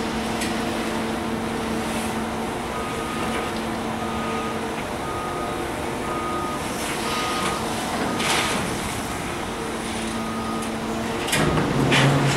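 A Kobelco hydraulic excavator's diesel engine running steadily while a backup alarm beeps about once a second. Gravel scrapes and rattles as the bucket digs aggregate out of a steel open-top gondola rail car, once about eight seconds in and loudest near the end.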